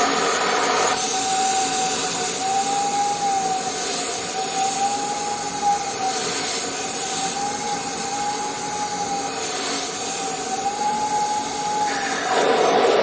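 Vacuum cleaner running: a steady motor whine with a slightly wavering tone over rushing airflow hiss. It grows louder and coarser near the end.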